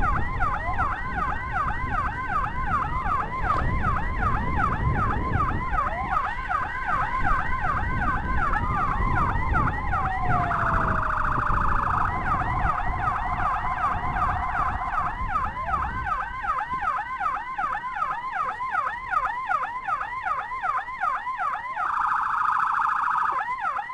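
Escort motorcycles' electronic sirens sounding a fast, continuous yelp. A second siren tone is held and then glides down in the middle, with two short bursts of rapid hi-lo warble. Underneath are motorcycle engine and road noise, which ease about two-thirds of the way in.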